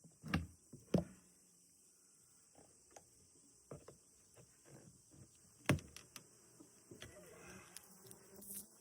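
Scattered knocks and clicks of trim boards being worked loose from a wooden deer stand, with three louder knocks: two in the first second and one about halfway through. Honeybees start buzzing faintly near the end.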